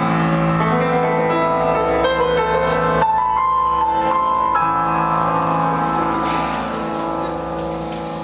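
Electric keyboard played live in a piano voice: a melody of held notes over sustained chords, with no singing, getting quieter over the last two seconds.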